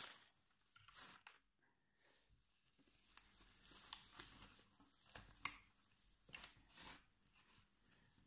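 Faint rustling and a handful of soft clicks from hands handling a blood ketone testing kit and its test strip.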